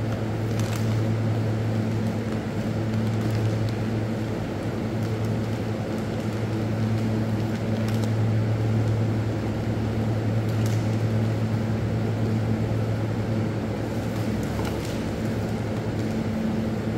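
Steady low hum of room machinery, with a few faint clicks scattered through it.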